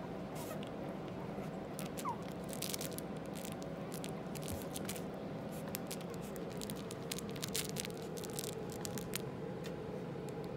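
Young Chihuahua puppies scuffling on a padded crate bed: soft rustling and scratching with scattered light clicks, over a steady low hum.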